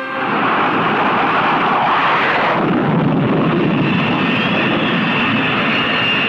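Jet aircraft engines running at full power with afterburners lit on an aircraft carrier's flight deck: a loud, steady rush of jet noise, with a high whine joining about four seconds in.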